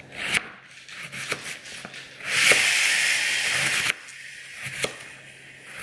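Kitchen knife slicing a peeled raw potato into rounds on a plastic cutting board, each cut ending in a sharp tap on the board, about one a second. In the middle, a steady hiss lasts about a second and a half and is the loudest sound.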